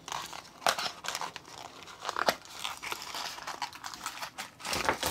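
Candy packaging rustling and crinkling as a package of individually wrapped sea salt caramels is opened and handled, with irregular sharp crackles and clicks.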